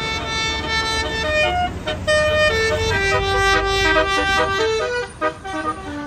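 Tour bus's telolet 'basuri' multi-tone horn playing a tune in short stepped notes, several tones sounding together, over the steady low rumble of the bus engine.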